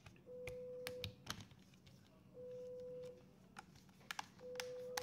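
A single-pitched electronic beep, each about three-quarters of a second long, repeating about every two seconds. Between the beeps come sharp clicks and taps from a laptop's plastic screen bezel and metal hinge being handled and pressed into place.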